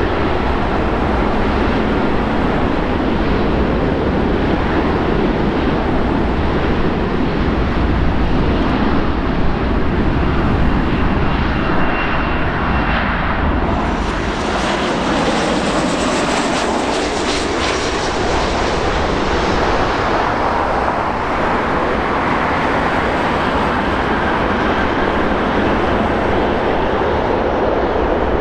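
Airbus A330-200's Rolls-Royce Trent 700 jet engines at takeoff power on the takeoff roll: a loud, steady jet roar that turns brighter and hissier about halfway through as the aircraft passes, then eases off a little.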